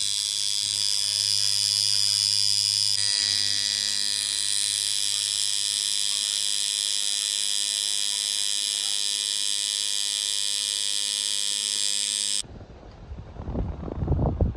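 Electric tattoo machine buzzing steadily as the needle works ink into skin, with a low hum and a bright, high-pitched whine. It cuts off suddenly about twelve seconds in.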